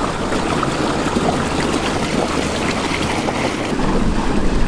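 Water rushing and splashing steadily along the hull of a skiff underway, with a low steady engine hum underneath.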